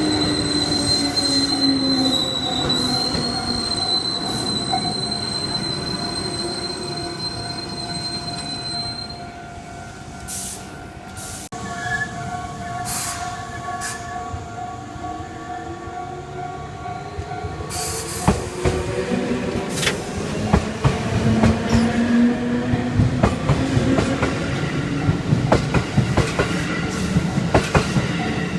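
Electric commuter trains on the JR Nara Line passing a level crossing. A high wheel squeal holds for roughly the first nine seconds while one train's motor whine falls away. Another train's whine rises in the second half, joined by rapid rail-joint clacks over the last ten seconds, with a steady-toned crossing bell sounding under it all.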